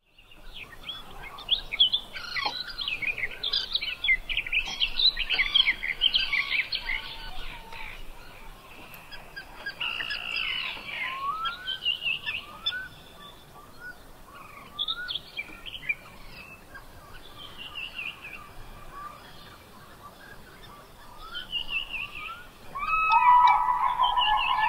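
Several birds singing and calling together: a dense run of quick high chirps for the first several seconds, then sparser short rising notes. A louder, steady tone joins about 23 seconds in.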